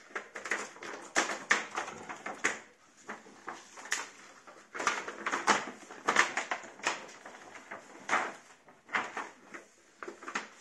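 Thin white plastic reflector sheet of an LCD TV's backlight being handled and flexed by hand: irregular crackling and rustling in clusters.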